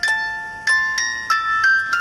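Wind-up wooden music box playing its tune: the turning pinned cylinder plucks the steel comb, giving bright ringing notes, about six in two seconds, each fading away slowly.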